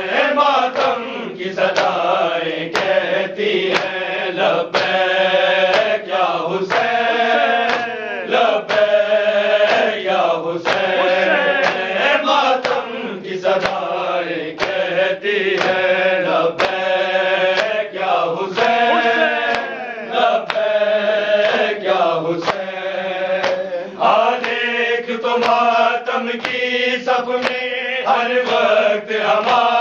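A group of men chanting a noha, a Shia lament, together, with regular sharp slaps of palms on chests (matam) keeping the beat.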